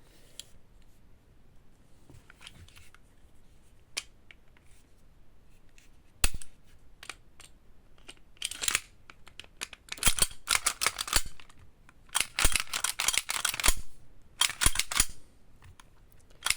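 Airsoft pistol slides being handled and fitted back onto their frames: plastic and metal parts scraping as they slide, with sharp clicks as parts snap into place. Most of the scraping and clicking comes in the second half.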